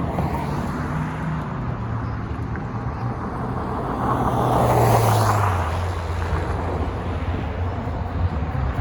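A motor vehicle passes over a steady low engine rumble, loudest about five seconds in, with its engine note dropping in pitch as it goes by.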